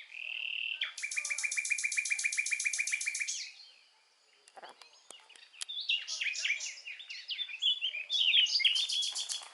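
Songbirds singing: a held high whistle, then a fast, even trill of about ten notes a second lasting some two seconds. After a brief pause comes a run of varied chirps with a few short clicks.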